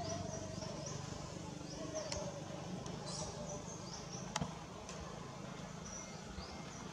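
Insects chirping outdoors in short, high, rising notes that repeat irregularly over a low background rumble, with a single sharp click about four seconds in.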